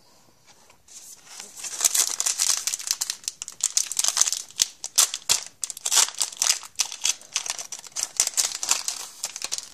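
Trading card pack wrapper crinkling with many sharp crackles as it is handled and torn open, starting about a second in.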